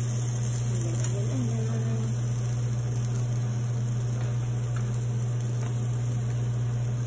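Steady low electrical hum with an even hiss above it, from a running kitchen appliance, with no clear scrapes or knocks from the spatula.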